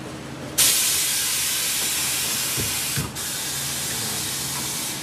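Air hissing out of a car tyre as it is deflated. The hiss starts suddenly about half a second in, breaks off for an instant about three seconds in, then carries on a little quieter.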